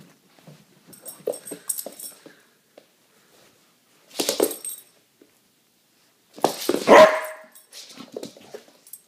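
A dog barks twice: a short bark about four seconds in and a louder one around seven seconds. Light scuffling sounds come in the first couple of seconds.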